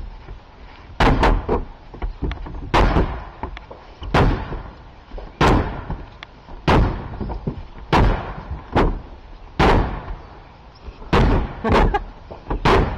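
Heavy blows denting the steel roof of a 1979 Mercedes-Benz 300SD, about a dozen loud metallic thuds at roughly one a second, some coming in quick pairs.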